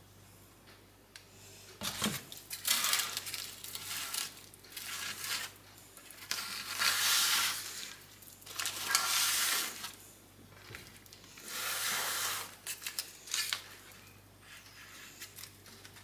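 Silicone spatula scraping thick brownie batter out of a mixing bowl and spreading it in a parchment-lined tin, in irregular strokes, with a knock about two seconds in.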